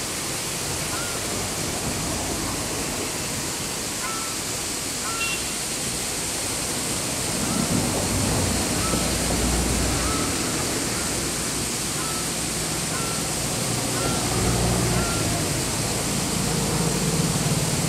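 Steady outdoor hiss with short, repeated calls from a flock of waterbirds, a brief note every second or so. A low rumble swells around the middle and again near the end.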